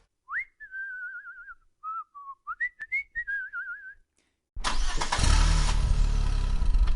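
A high, warbling whistle with short upward slides. Then, about four and a half seconds in, a loud vehicle engine sound with a low rumble starts suddenly.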